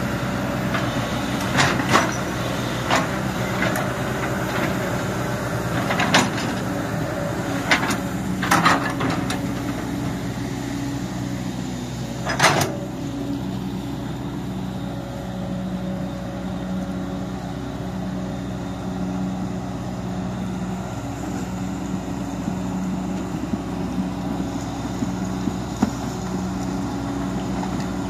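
Sumitomo hydraulic excavator's diesel engine running steadily, with several sharp clanks in the first half, the loudest about twelve seconds in.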